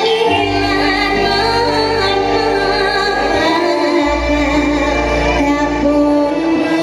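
A woman singing a Javanese campursari song live, amplified, over a band of gamelan metallophones, guitars and drums, with a sustained bass line underneath.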